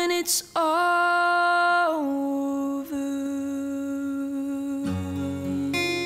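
A woman singing solo, holding one long note that steps down to a lower sustained note. Just before the end an acoustic guitar comes in under the voice.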